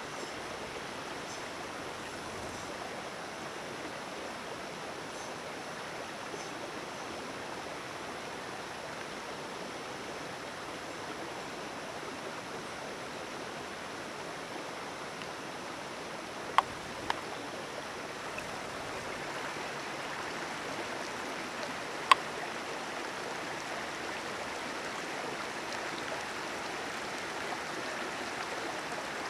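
Mountain creek rushing steadily, with two sharp clicks about half a second apart past the middle and a louder single click about five seconds later.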